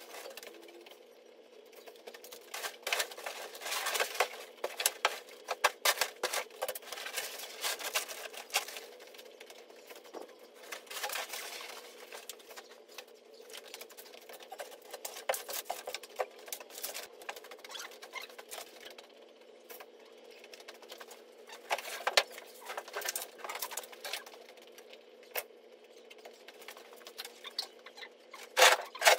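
Rubbish being handled and cleared from a littered floor: irregular rustling, crackling and clicking of plastic sacks, cloth and dry debris, with footsteps on the rubble, over a faint steady hum. The busiest, loudest crackling comes in patches, with a sharp burst near the end.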